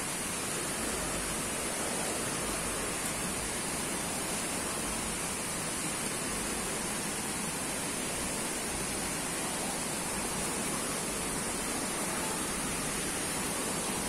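Steady rushing of a waterfall and its stream, an even wash of water noise.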